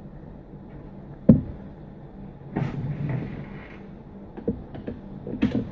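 A wireless charging pad being set down and positioned on a cardboard-covered desk: one sharp knock about a second in, then scraping and rustling, and a few light clicks and taps near the end, over a faint steady low hum.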